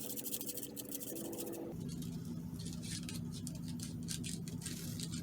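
Drink-mix powder being mixed into water in a plastic bottle: a fast, dense scratchy scraping, then from about two seconds in, irregular light clicks and rustles.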